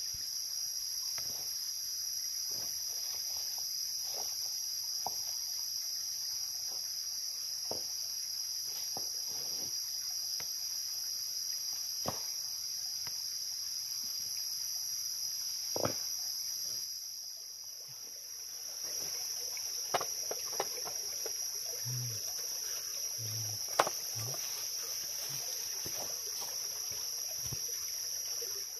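A steady, high-pitched insect chorus drones continuously, with scattered faint clicks and snaps over it.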